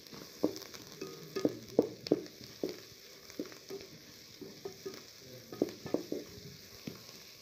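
Sliced onions, green chillies and curry leaves sautéing in hot oil in an aluminium pot, stirred with a wooden spatula. A soft sizzle runs under irregular knocks and scrapes of the spatula against the pot.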